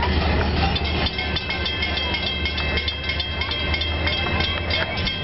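Freight train rolling away past the crossing, its wheels clicking over the rail joints over a steady low rumble, with steady high-pitched tones ringing above.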